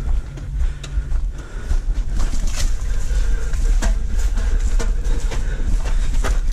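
Footsteps and scattered knocks of people moving over the course, over a steady low rumble on the microphone.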